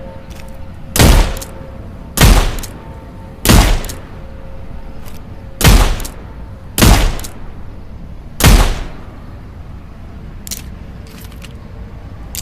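.38 revolver firing six shots, irregularly spaced about one to two seconds apart, each a sharp report with a short fading tail.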